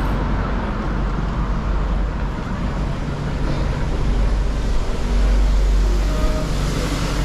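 Street traffic: a steady wash of passing cars and engines, with a deeper rumble swelling about five seconds in.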